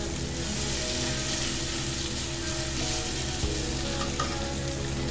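Soya chunks in masala sizzling steadily in an iron kadhai, with a steel spatula stirring and scraping them round the pan. They are being roasted (bhuna) in the oil.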